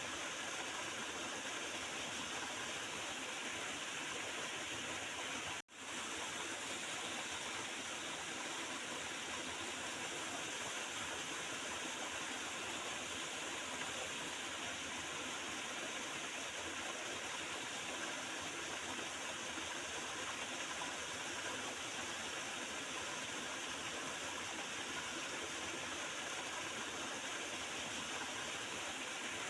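Small river flowing and gurgling in a steady rush of water. The sound breaks off for a moment about six seconds in.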